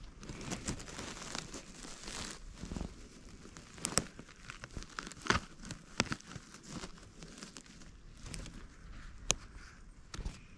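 Close crackling and rustling of dry conifer needles and forest-floor litter as a hand works around and picks bolete mushrooms, with several sharp snaps along the way.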